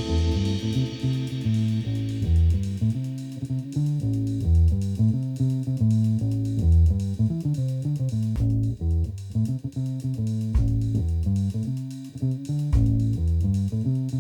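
Background instrumental music with a strong bass line moving note by note.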